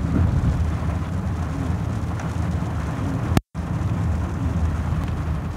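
Car driving on a wet road, heard from inside the cabin: a steady low rumble of engine and tyre noise. About three and a half seconds in there is a click and the sound cuts out for a split second before the rumble resumes.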